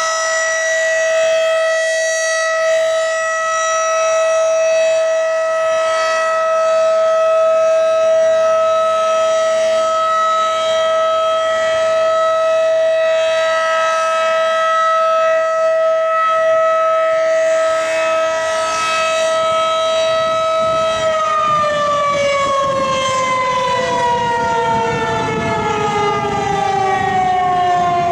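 Federal Signal 2001-DC single-tone rotating outdoor warning siren sounding a steady tone during its weekly test. About 21 seconds in, the chopper motor cuts off and the pitch falls steadily as the siren winds down.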